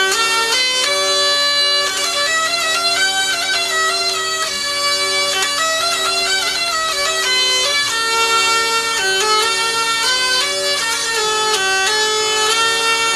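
Bagpipe music: a chanter melody moving note to note over a steady held drone.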